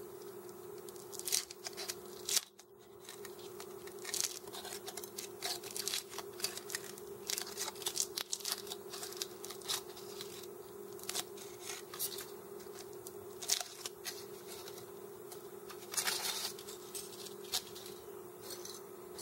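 Thin foil wrapper being peeled and crinkled off a Cadbury Creme Egg by hand: irregular soft crackles and rustles, over a steady low hum.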